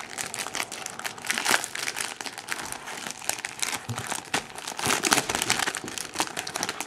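Packaging being crinkled and handled by hand as it is worked open, with irregular crackling rustles throughout.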